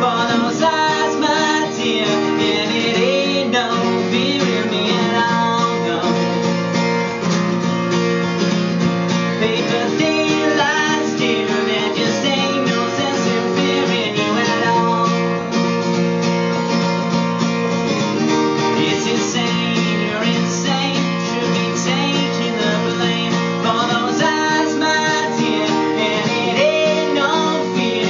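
Acoustic guitar played live, a steady, repeating chord accompaniment to a song.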